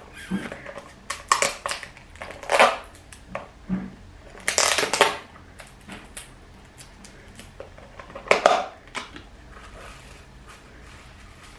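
Wrapping on a packed gift being torn and crinkled open by hand, in irregular crackling bursts, loudest about halfway through and again about two-thirds of the way in.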